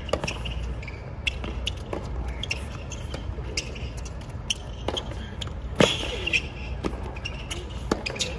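Tennis rally on a hard court: sharp pops of the ball off the racket strings and its bounces on the court, every half second to a second, the sharpest a little before six seconds in, over a low steady rumble.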